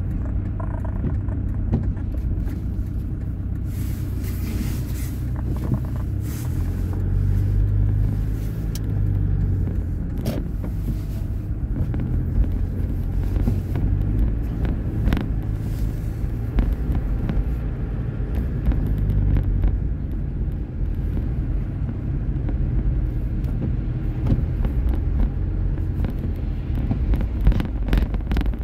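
Car cabin noise while driving: a steady low rumble of engine and road noise, with a brief rise in hiss about four seconds in and a few faint clicks.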